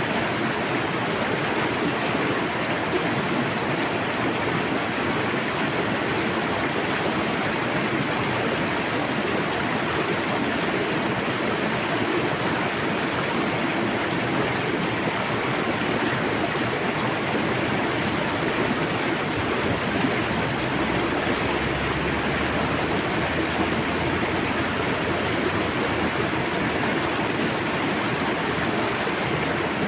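A fast-flowing forest river rushing steadily over its bed. A bird gives a short high chirp right at the start.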